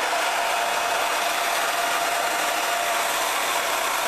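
Hair dryer blowing steadily on one setting, a loud even rush with a steady whine running through it.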